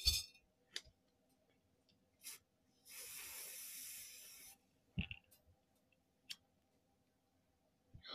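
Aerosol hairspray can spraying in one steady hiss lasting about a second and a half, a few seconds in, with a few scattered clicks and knocks before and after it.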